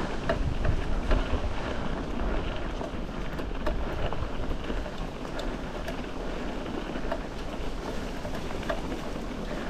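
Wind buffeting the microphone of a handheld camera: a steady rushing noise with low, gusty rumbles, strongest in the first second or so and settling afterwards.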